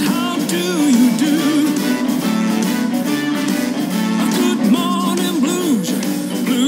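Background music: a guitar-led song with many sliding, bending notes.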